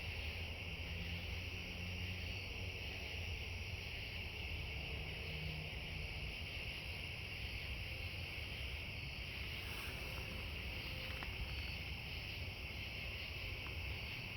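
Steady chorus of night insects in a high band, over a continuous low rumble that seems like distant muscle car engines.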